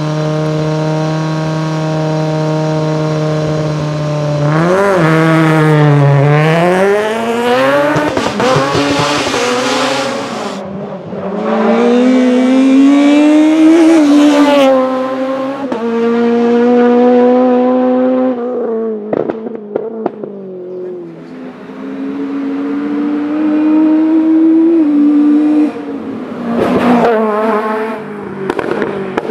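VW Golf Mk1 hillclimb car's Spiess 16-valve engine, a high-revving four-cylinder, held at steady revs at first, then accelerating hard through the gears several times, pitch rising and dropping at each shift. Sharp pops and crackles come on lift-off in the second half.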